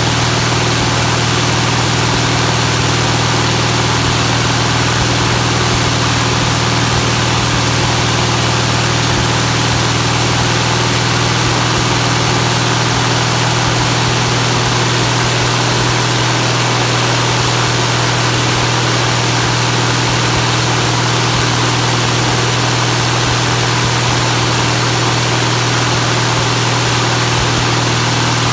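UL Power UL520iS fuel-injected aircraft engine running steadily on a ground break-in run, turning a wooden pusher propeller, with a strong low drone and a hiss of prop wash. Engine speed holds steady with no change.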